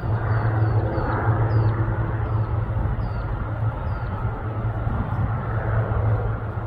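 Single-engine light aircraft's piston engine and propeller droning steadily overhead as it flies away, easing off slightly near the end. Short high chirps sound over it in the first few seconds.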